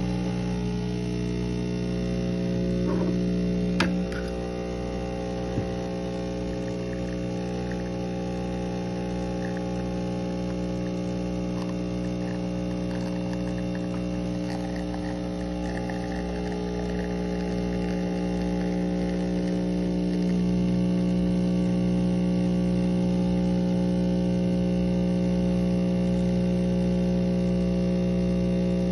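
Vibratory pump of a Breville Dual Boiler espresso machine buzzing steadily while it pulls an espresso shot. There is a click about four seconds in, and the buzz grows louder about twenty seconds in.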